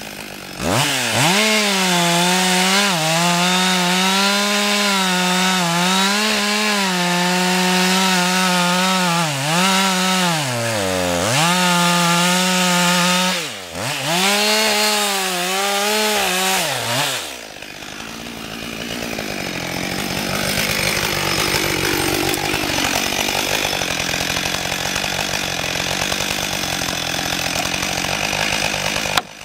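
Husqvarna 562 XP chainsaw cutting into a tree trunk at high revs, its pitch dipping now and then as the chain bites under load. After about 17 seconds it drops back to a lower, rougher idle.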